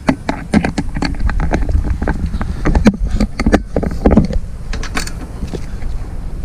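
A 12 mm wrench undoing the seat bolts on a Suzuki DR650 motorcycle: a run of irregular sharp clicks and metal knocks over a low rumble.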